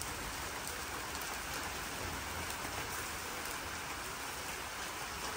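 Steady rain: an even hiss with a faint scatter of drop ticks.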